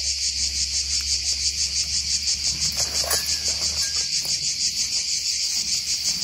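A loud, even insect song, pulsing about five times a second without a break. Faint crackles of footsteps through dry undergrowth come through about halfway in.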